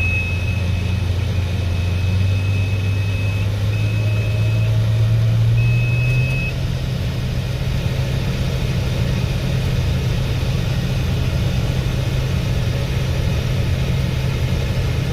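Case IH 1680 combine running steadily while harvesting barley, its engine note rising a little about six seconds in. A thin high tone comes and goes through the first six seconds.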